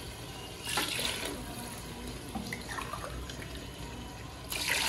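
Water poured from a glass into an aluminium pressure cooker of chicken curry, splashing into the pot in two louder pours, about a second in and near the end.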